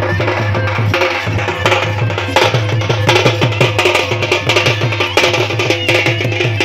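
Odia folk ensemble playing: stick-beaten drums in a fast, dense rhythm under a steady, held melody from a brass-belled wind instrument.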